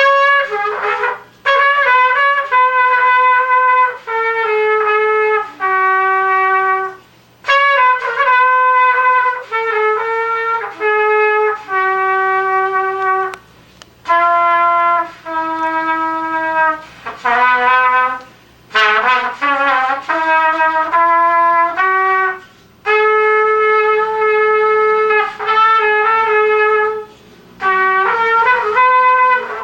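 Unaccompanied trumpet playing a melody in short phrases of held notes, with brief breathing gaps between them and a quick run of notes about two-thirds of the way through.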